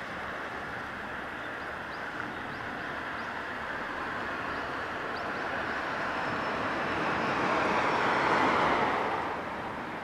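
Noise of a passing vehicle: a steady rush that swells to its loudest about eight seconds in and then eases off. A few faint, short bird chirps come in the first half.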